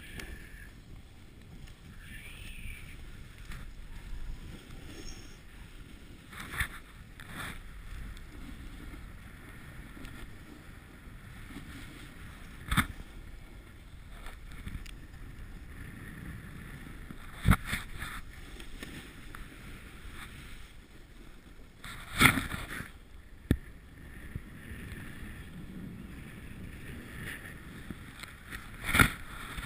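Snowboard sliding over snow with a steady rush of air and snow noise on a GoPro, broken by about six sharp knocks, the loudest near the middle.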